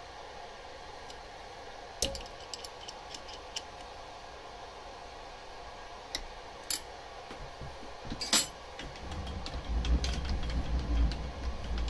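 Scattered metallic clicks and clinks of a 6 mm Allen key on an M8 socket-head bolt as it is tightened into the tailstock's aluminium clamp block, over a steady faint hum. In the last few seconds a low rumble comes in under further clicks.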